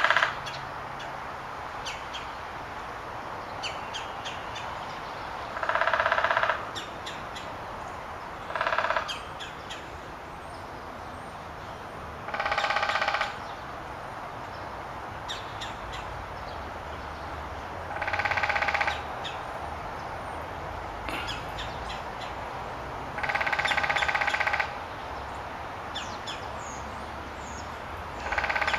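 Woodpecker drumming: about seven short, rapid rolls, each lasting about a second and repeating every few seconds, over a steady outdoor background with faint bird chirps.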